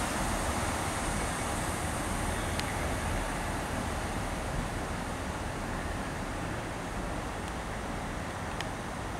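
GWR passenger train running past along the platform: a steady rumble of wheels on rail that slowly fades as its carriages go by.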